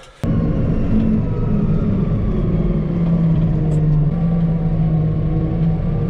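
New Holland farm tractor's diesel engine running steadily under way, heard from inside the cab. It starts abruptly just after the start.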